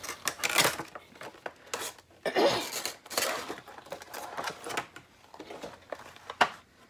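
Packaging and gift items being handled: irregular bursts of rustling and crinkling, with a sharp click about six and a half seconds in.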